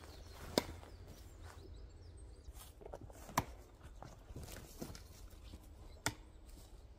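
Sharp knocks of a thrown screwdriver sticking into a wooden tree-stump target, about half a second in and again near the end, with a third knock midway. Faint footsteps on dry leaf litter run between them.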